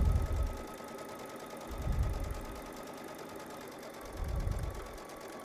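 Baby Lock Solaris sewing machine stitching a 1/4-inch piecing seam through layered cotton fabric with a steady running hum. Three short low rumbles come about two seconds apart.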